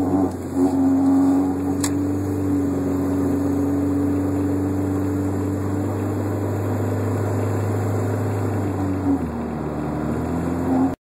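1996 VW Jetta Mk3's 2.0 four-cylinder car running with a steady drone for about nine seconds, with a brief click about two seconds in. The tone shifts just after nine seconds, and the sound cuts off suddenly at the end. The owner hears a rubbing noise in it, which he places near the centre of the car but cannot identify.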